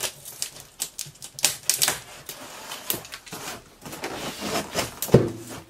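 Cardboard shipping box being opened with a box cutter: an irregular run of sharp crackles and clicks from the tape and cardboard, with scraping and rustling as the flaps are pulled open.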